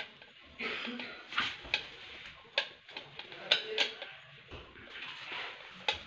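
A metal screwdriver clicking and scraping against a shower valve's cover plate as the plate is worked on, with several sharp clicks at irregular intervals among softer scraping.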